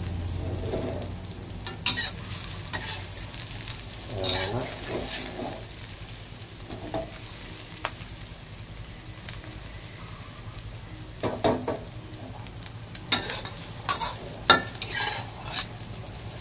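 Garlic-chive omelette frying in oil in a metal wok, a steady sizzle. A metal spatula scrapes and knocks against the wok now and then, most often in the last few seconds.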